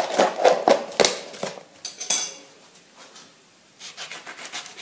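Clicks and knocks of a plastic food container being handled and set down on a stone counter, with a brief scrape about two seconds in. Near the end come a few faint taps as a knife starts cutting a lemon.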